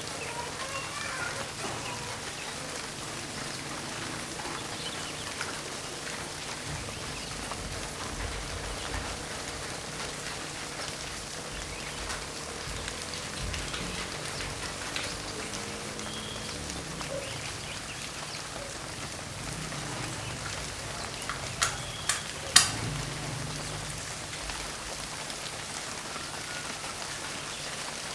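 Steady rain falling, an even hiss of many drops. About three-quarters of the way in come three sharp knocks in quick succession, the last the loudest.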